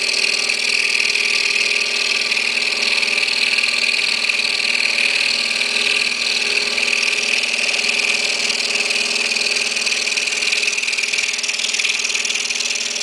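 Excalibur scroll saw running steadily with a fine 2/0 reverse-tooth blade cutting slowly through maple along a tight curve: a steady hum under a high buzz.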